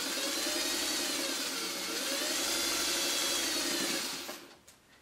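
Electric sewing machine running as it stitches a seam, its motor whir rising and falling in pitch as the speed changes, then stopping about four seconds in.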